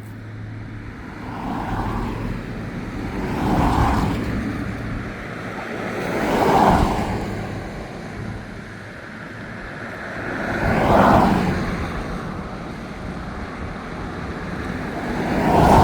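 Highway traffic passing, several vehicles one after another, each swelling and fading over a couple of seconds.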